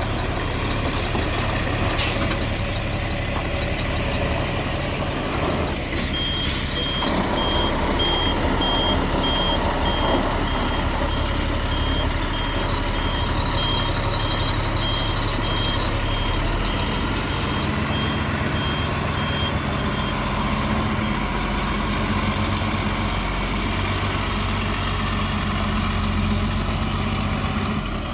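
Heavy diesel truck engine running steadily, with a reversing alarm beeping repeatedly from about six seconds in until about twenty seconds in. A few sharp clicks or knocks sound near the start.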